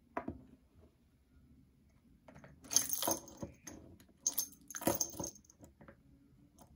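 A silicone AirPods case set down on a desk with a soft knock, then a keychain charm with a plastic chain and a small bell jingling in two bursts as it is laid beside it.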